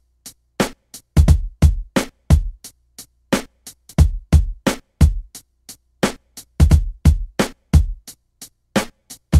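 Background music: a beat of sharp percussive hits, many with a deep kick drum under them, and short silent gaps between.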